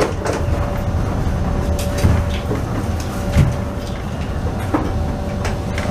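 Carmelit underground funicular railway car running along its track, heard from inside the front cab: a steady low rumble with a faint steady whine and a few scattered knocks and clicks.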